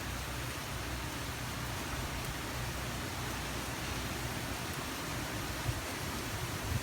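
Steady hiss of hurricane rain and wind, with a brief low buffet of wind on the microphone near the end.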